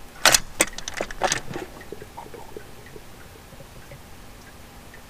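A few sharp metallic clicks and clinks in quick succession, from tools and engine parts being handled in the engine bay, over in about a second and a half.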